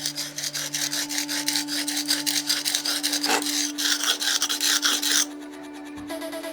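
Knife blade being stroked back and forth on a whetstone, about four quick gritty scrapes a second, stopping about five seconds in. The stone is wearing away fast, which the sharpener suspects is because it was not soaked in water. Background music with a steady low tone underneath.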